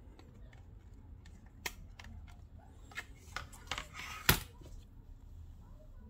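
Plastic clicks and a short scraping rustle as a tablet's screen is handled and lifted off its frame, with one sharp snap a little over four seconds in.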